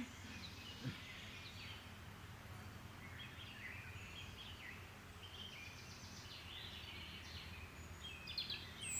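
Birds chirping and singing over steady low outdoor background noise. The bird calls are most frequent in the second half.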